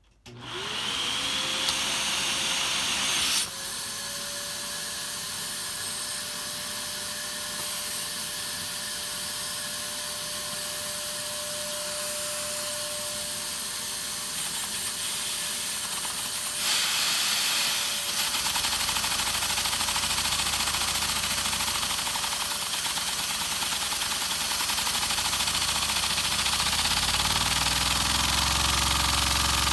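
Vacuum cleaner switching on, its motor whine rising to a steady pitch within the first second, then running with a loud hiss of suction that drives a 6x6 LEGO vacuum engine. From a little past halfway a low rumble of the running engine joins in.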